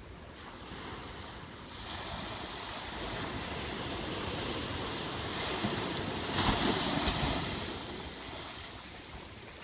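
Small ocean waves breaking and washing up the beach, the wash swelling to its loudest a little past the middle and then easing off.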